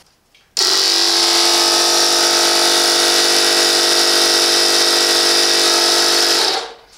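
Parkside PMK 150 A1 portable air compressor running on 230 V mains with nothing connected, its gauge reading zero. It cuts in suddenly about half a second in, runs at a steady pitch with a hum and a hiss, and winds down near the end as it is switched off.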